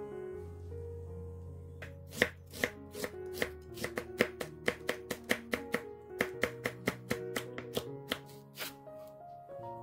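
Kitchen knife slicing green and red chili peppers on a wooden cutting board: sharp taps of the blade on the board, about three a second, starting about two seconds in, over background music.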